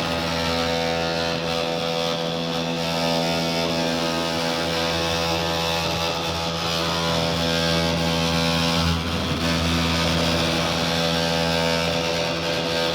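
RockMow S108 robotic lawn mower running with its cutting disc spinning: a steady motor hum with a hiss above it, the noise the owner complains of with both the standard disc and the PreciEdge disc. The sound dips briefly about nine seconds in.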